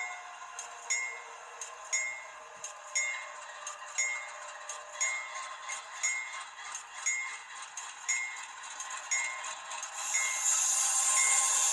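Locomotive bell from an HO scale GE AC44C6M model's sound system, ringing steadily about once a second as the train gets going. About ten seconds in, a steady hiss joins in and grows louder.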